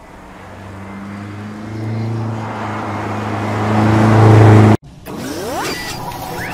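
BMW X5 M's 4.4-litre twin-turbo V8 running under way, its exhaust note growing steadily louder as the car comes closer, then cut off abruptly near five seconds. Short sweeping whoosh effects follow.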